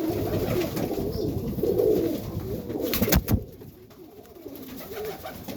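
Serbian highflyer pigeons cooing in a loft, low wavering coos over one another. About three seconds in come a couple of sharp knocks, and after that the cooing is fainter.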